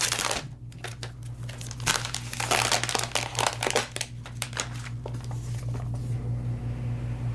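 Plastic wrapping on a new iPhone Xs Max box being torn off and crinkled by hand: a dense run of crackling and rustling for about the first half, then sparser rustles.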